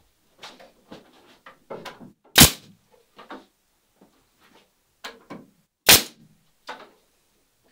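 Pneumatic 18-gauge brad nailer firing twice, about three and a half seconds apart, as brads are driven to fasten a wooden ribband to the boat's molds. Lighter knocks and taps of handling the wood fall between the two shots.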